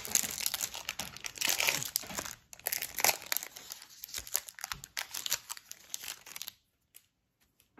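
Foil wrapper of a Topps Chrome baseball card pack being torn open and crinkled by hand, an irregular crackling that stops about six and a half seconds in.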